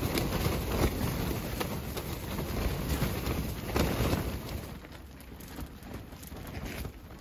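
Strong storm wind buffeting a tent, heard from inside: the fabric walls flapping and crackling under the gusts. The gust eases about halfway through.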